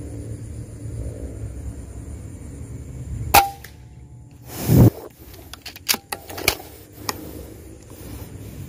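An air rifle shot at a squirrel: a sharp crack with a short metallic ring, over a steady low rumble. About a second later comes a louder short rush of noise, then a few light clicks.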